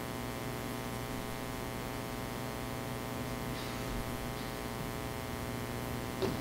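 Steady electrical mains hum and buzz with hiss from the sound system, with a brief faint sound just before the end.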